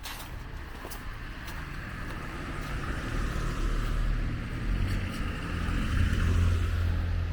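A car driving past on the street, its engine rumble and tyre noise growing steadily louder to a peak about six seconds in.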